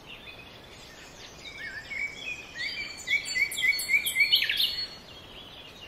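Forest ambience: a steady hiss with birds singing over it, a run of short, quickly repeated chirps building from about a second and a half in and dying away near the end.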